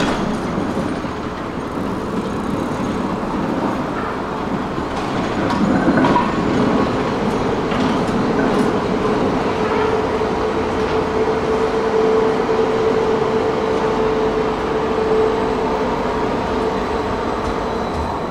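A two-car high-floor tram running past close by on street track, its wheels rumbling on the rails. A steady hum grows stronger through the middle of the pass.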